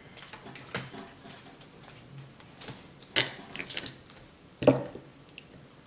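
Eating and food-handling sounds at a seafood boil: a few scattered sharp clicks and wet squishes as king crab legs and shellfish are handled and dipped in sauce, the loudest about three-quarters of the way in.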